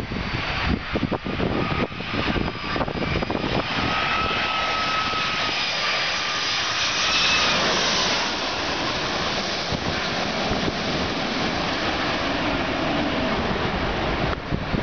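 Boeing 757-200 airliner on landing approach passing low overhead: a jet engine roar and whine with high steady tones, loudest about seven or eight seconds in, then dropping in pitch as the aircraft moves away over the runway. Wind buffets the microphone during the first few seconds.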